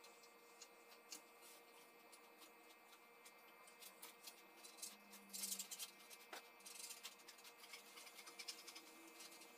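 Near silence with faint handling noise: small clicks as a C-clamp is set on a machete blade, a brief rustle about five seconds in, and light scratching of a pen marking the steel near the end.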